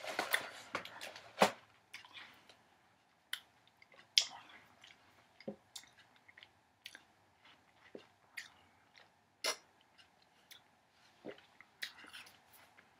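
Someone eating a grape fruit bar: scattered bites and chewing with short sharp clicks, the densest and loudest in the first second and a half.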